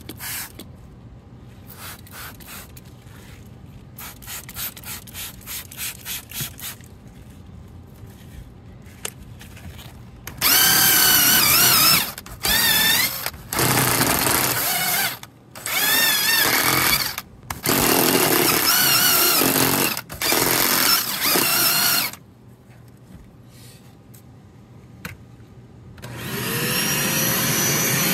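A few squirts of a trigger spray bottle, then a DeWALT cordless driver spinning a drill brush against car carpet in five or six bursts of a few seconds each, its pitch wavering under load. Near the end a vacuum motor starts and winds up to a steady whine.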